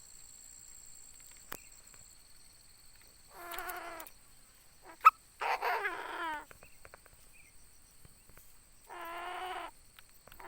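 Decoy Chinese francolin (đa đa) calling: three short calls of quick repeated notes, a few seconds apart. A sharp, loud click comes just before the second call.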